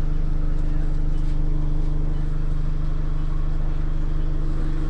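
Bus engine and running gear heard from inside the passenger cabin: a steady, loud, low drone with a constant hum as the bus drives along.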